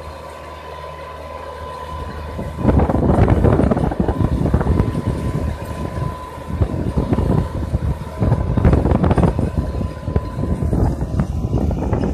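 Tractor engine running steadily under load as it pulls a plow through the field. From about three seconds in, loud gusty, irregular rumbling noise swamps it.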